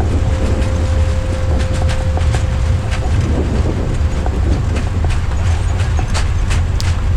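Airbus A340-300 on its landing rollout, heard from the cockpit: a deep, steady rumble of the engines in reverse thrust and the wheels on the runway under braking, with repeated knocks as the gear rolls over the runway. A faint steady tone sounds for the first few seconds.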